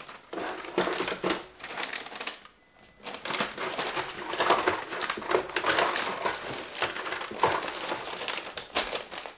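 Wrapping paper crinkling and rustling as it is folded and pressed around gift boxes, in irregular bursts with a short pause about two and a half seconds in.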